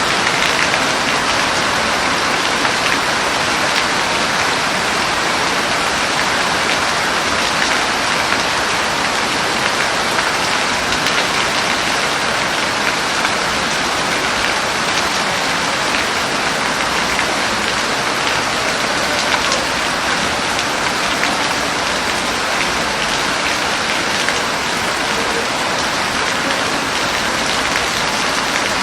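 Steady heavy rain falling on a hard surface, a dense even patter without pause.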